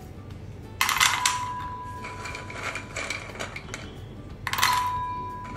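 Crisp fried maida biscuits (kalakala) dropped into an empty stainless steel bowl in two lots, about a second in and again near the end. Each lot makes a rattling clatter, and the bowl rings on with a steady tone. The hard clatter is the sign that the biscuits have cooled and turned crisp.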